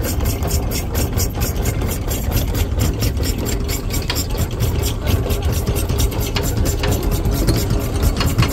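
Boat's anchor windlass running, with a steady low mechanical drone and a quick, even run of clicks as the anchor chain feeds over the gypsy.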